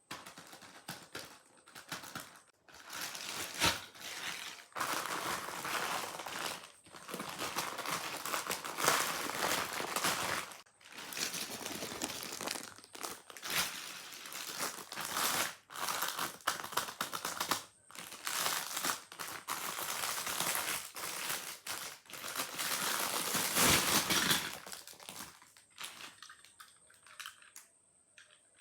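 Packaging being unwrapped and handled by hand: irregular crinkling and rustling in uneven bursts with short pauses, quieter in the last few seconds.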